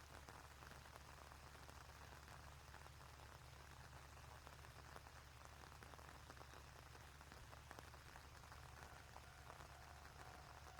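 Faint rain falling, a soft steady patter of drops, over a low steady hum.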